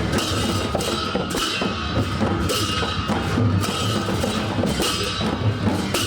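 Live festival drumming: drums and percussion playing a steady repeating rhythm, with bright struck accents recurring about once a second over a continuous low drum beat.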